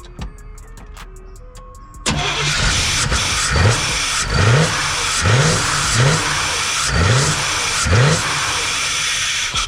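1989 GMC Sierra's throttle-body-injected engine cranked over by the starter for about seven and a half seconds, beginning about two seconds in, with six brief rising surges as it tries to fire. It wants to start but does not catch and run, even with fuel now reaching the injectors from the new fuel pump.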